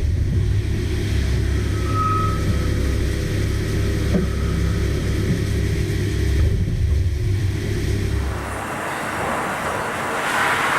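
Hitachi Seiki Super Hicell 250 CNC turning and milling centre running, with a heavy low rumble. About eight and a half seconds in, the rumble drops away and a brighter hissing noise takes over.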